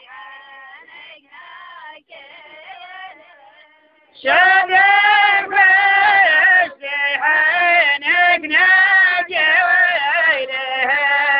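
A solo voice singing Socotri poetry with no instrument heard, in long melodic phrases. It is quieter for the first four seconds, then louder, with long held notes from about four seconds in.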